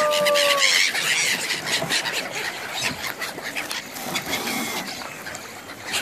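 A flock of gulls calling over the river: many overlapping shrill cries and squeals, with a long held note fading out about a second in.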